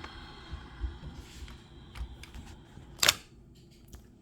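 Faint steady hiss with a few small ticks and one sharp click about three seconds in.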